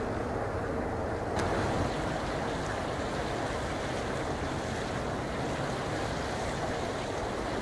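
Boeing 747 freighter's four jet engines running with a steady, noisy roar as it moves along the runway, with wind buffeting the microphone. The sound shifts abruptly about a second and a half in, taking on more hiss.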